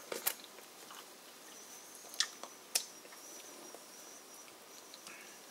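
Fizzing foam of club soda and coffee in a mug: a faint, fine crackle of bubbles popping, with three sharper clicks, one just after the start and two close together about two seconds in.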